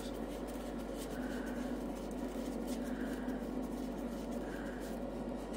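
Nostalgia retro cotton candy machine running with a steady hum as its motor spins the heated head, spinning sugar into floss. A faint swish comes about every second and a half.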